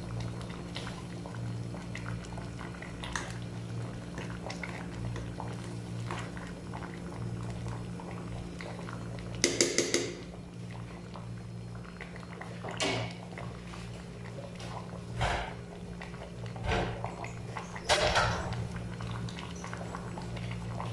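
A stew simmering in a stainless steel stockpot over a steady low hum; about halfway through, a metal spoon clinks several times against the pot as the stew is stirred, and a few shorter knocks and scrapes follow.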